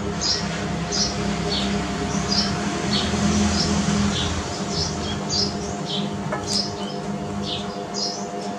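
Short, high chirping calls, each sliding down in pitch, repeating about twice a second over a steady low hum.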